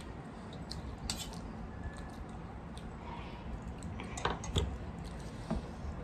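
Eating rice and curry by hand from metal plates: soft squishing as the rice is mixed, with scattered small clicks and taps, two louder ones a little past the middle.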